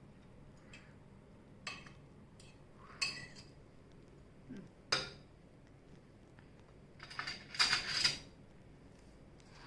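Cutlery clinking and scraping on plates in a few separate short clinks, with a longer clatter about eight seconds in.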